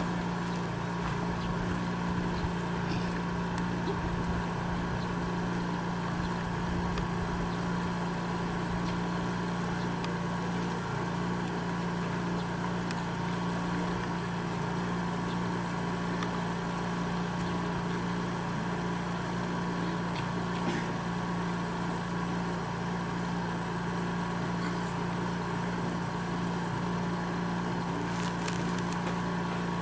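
A steady, unchanging low mechanical hum, like a motor or generator running, with a few faint ticks.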